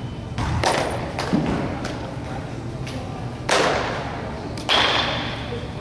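Four sharp thuds of a softball being caught and thrown, each ringing on in the echo of a large indoor hall.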